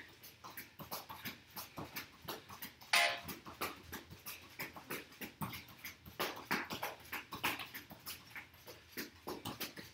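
A soccer-style ball being tapped quickly back and forth between the insides of a person's sneakers, with soft foot scuffs on a rubber mat, about three or four taps a second in an uneven rhythm. A brief, louder squeak stands out about three seconds in.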